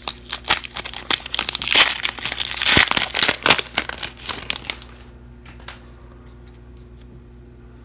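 The wrapper of a Classics football trading-card pack being torn open and crinkled by hand: dense crackling and tearing for about five seconds, then much quieter as the cards are slid out.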